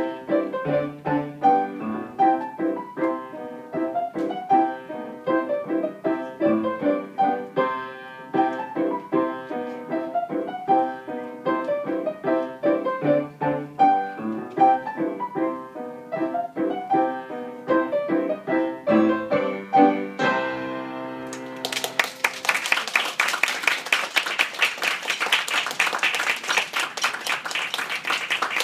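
Grand piano playing a lively ragtime piece that ends on a held final chord about 20 seconds in. Audience applause follows.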